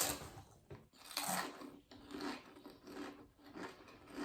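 Pringles crisps being chewed close to the microphone: steady, rhythmic crunching, a crunch about every half second.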